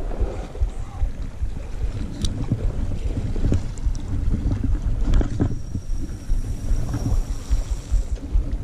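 Wind buffeting the microphone, a loud uneven low rumble, with a few faint clicks and a thin high whine for a couple of seconds past the middle.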